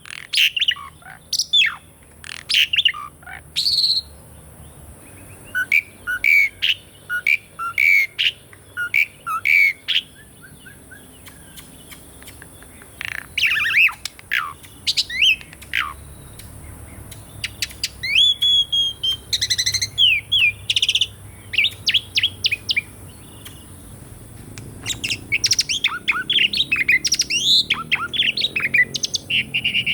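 Asian pied starling (jalak suren) singing in phrases of rapid whistles and chattering, sweeping notes, with short pauses between phrases.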